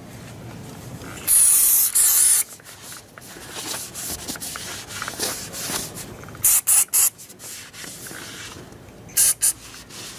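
Aerosol can of heat-resistant wax spraying in short hisses: two about a second in, three quick ones in the middle and one more near the end. Between the sprays a cloth rubs over the muffler.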